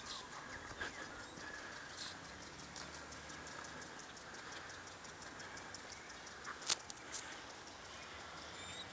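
Faint outdoor background with rapid, faint, regular ticking and one sharper click about seven seconds in.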